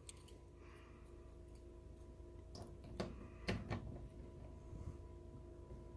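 A few faint clicks and knocks from handling a lock pick and an ignition lock cylinder, clustered about halfway through, over a low steady hum.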